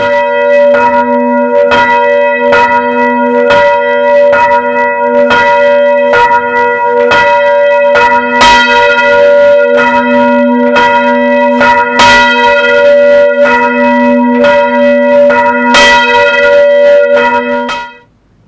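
Church curfew bell, rung from the tower by rope, tolling the curfew. It is struck over and over, about two strokes a second, and its tones run together into a continuous ring. It cuts off abruptly near the end.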